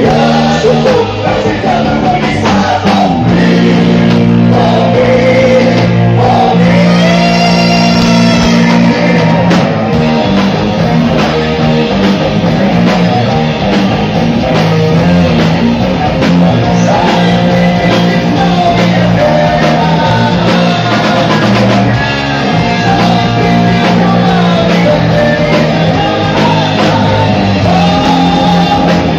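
A live rock band playing loudly: a man's voice singing into a microphone over electric guitar, bass and drums.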